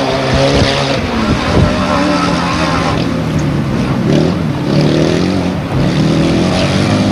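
Grasstrack sidecar outfits racing past, several engines revving hard with their pitch rising and falling as the throttle opens and closes.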